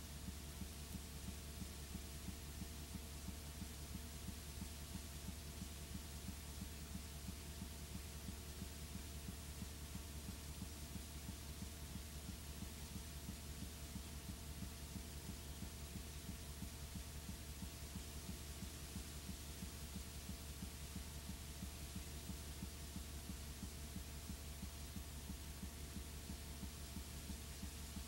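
Steady low electrical hum with faint hiss and no other sound: the empty, unrecorded end of the video's soundtrack.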